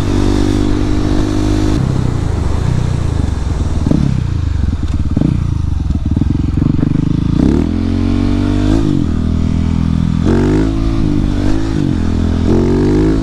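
Husqvarna 701's single-cylinder engine running under way, heard through a microphone inside the rider's helmet. It holds steady at first, then the revs rise and drop several times in the second half.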